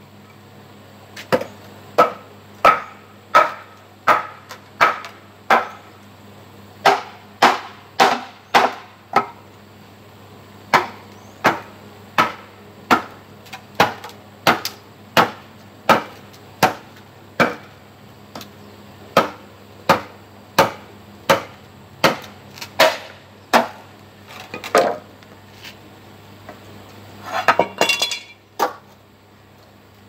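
Machete chopping into an upright bamboo pole: sharp, evenly paced strikes, about three every two seconds. After a short pause near the end comes a quick run of several knocks.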